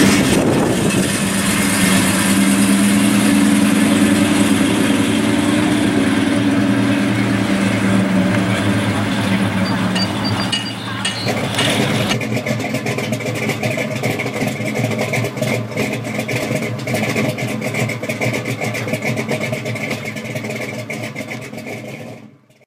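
A car engine idling steadily; about halfway through the sound changes, and it fades out near the end.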